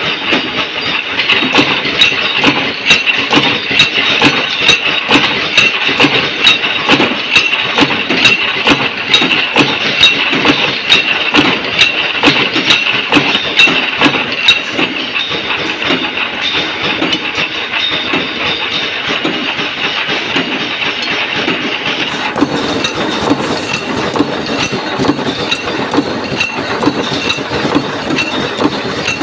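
Washer punching press running continuously, stamping steel plate with a steady rhythm of sharp strikes about two to three a second over a constant machine running sound. About two-thirds of the way through, the sound changes, with more low running noise.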